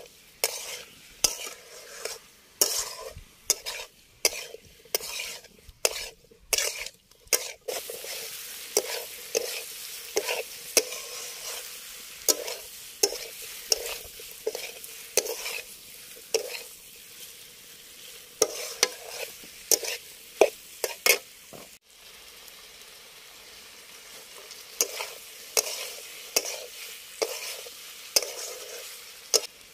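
Metal spatula scraping and knocking against a metal kadai as chicken and peppers are stirred, about one or two strokes a second, over a steady sizzle of the food frying in the pan.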